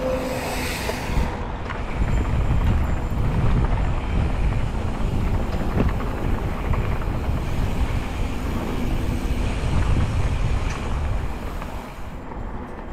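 Rumble and rattle of an e-mountain bike riding fast over a dirt trail, with wind buffeting the microphone and scattered knocks from bumps. It eases off a little near the end.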